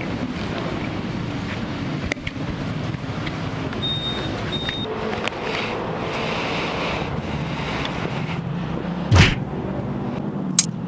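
Yamaha R15 V3 motorcycle's single-cylinder engine running on the move through a Villan aftermarket exhaust, under a steady rush of wind and road noise. Sharp thumps about nine seconds in and again near the end.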